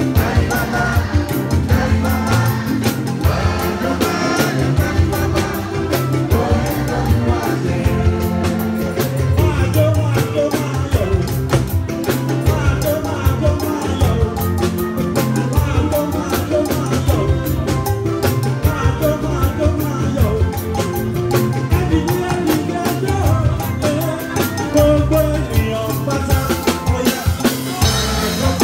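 Upbeat band music with drums and a pulsing bass line, with voices singing.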